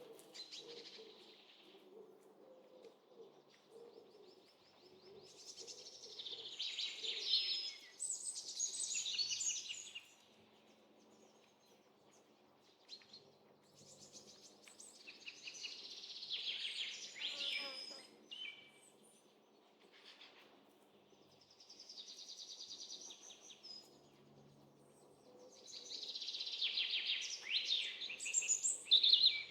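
Forest bird ambience: several birds chirping and singing in bouts every several seconds, with quieter gaps between, over a faint low background hum.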